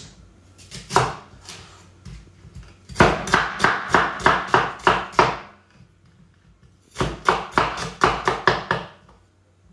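Cleaver chopping onions on a chopping board. A few single knocks come first, then two quick runs of chops at about four a second, each run lasting around two seconds.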